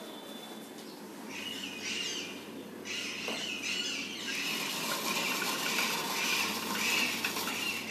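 Parrots squawking and screeching in a noisy chorus, many calls overlapping, starting about a second in.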